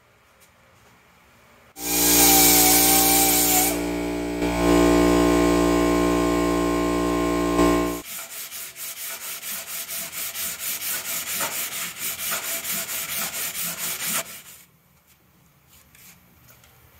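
A power tool runs steadily for about six seconds, its pitch shifting partway, then stops. Rapid back-and-forth hand sanding strokes on the fiberglass body follow, about three or four a second, for about six seconds, roughing up the gel coat for primer.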